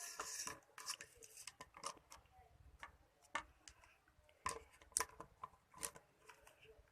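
Small plastic parts being handled: irregular sharp clicks and taps, with a short rustle of packaging at the start.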